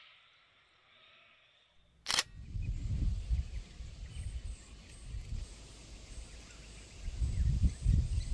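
Wind buffeting an outdoor microphone: a gusty low rumble that rises and falls, starting after a sharp click about two seconds in, with a quieter stretch before it.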